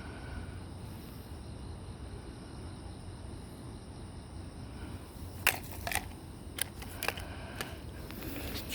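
Faint cricket chorus over a low steady rumble, with a run of about eight sharp clicks a little past halfway.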